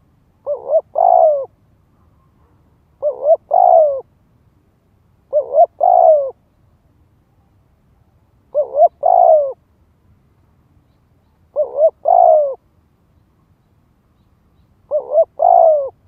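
Spotted dove crowing: six phrases, each two short coos followed by a longer falling coo, repeated about every three seconds. This is the male's crow used as a decoy call to draw in wild males.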